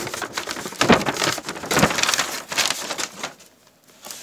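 Plastic mailer bag crinkling and rustling as it is handled, in quick irregular crackles that stop a little after three seconds in.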